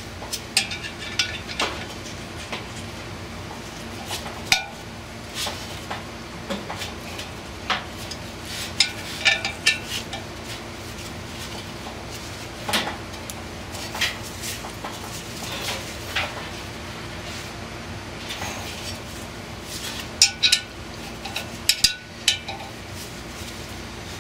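Steel hand tools (a ratchet, a wrench and a bolt-type puller) clinking and clicking against the metal hub and housing of a squirrel cage blower while the puller is worked to free a frozen motor shaft. The clinks come irregularly, with a few quick flurries about nine and twenty seconds in.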